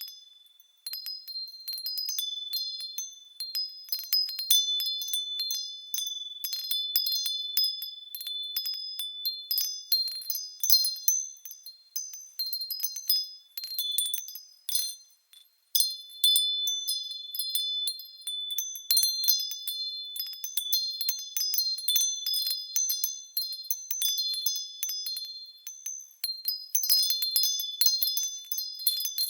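Japanese fūrin wind chime rung by the wind: irregular clusters of high, clear ringing tones that decay between strikes, with brief lulls just after the start and about halfway through.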